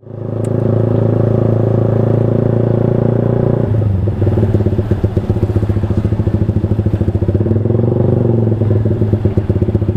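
Yamaha R15 V2's single-cylinder engine running through an aftermarket Proliner TR1R Short slip-on silencer on a 3Tech Racing header. The exhaust note is smooth and steady at first, then from about four seconds in it turns choppy, with a fast even pulsing.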